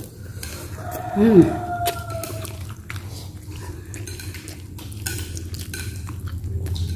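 Clinks and light scrapes of cutlery against ceramic plates during a meal, over a steady low hum. About a second in comes one short pitched sound with a curving pitch, the loudest moment.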